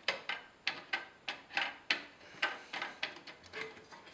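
A quick run of small, irregular clicks and short scrapes, about a dozen in four seconds: a pry tool working a CMOS battery loose and sliding it out of its holder on a computer mainboard.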